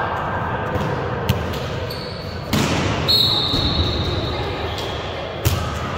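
A volleyball being struck during play in a gym: a few sharp smacks that echo in the hall, the loudest about two and a half seconds in. A brief high squeal follows it, over a background murmur of spectators' voices.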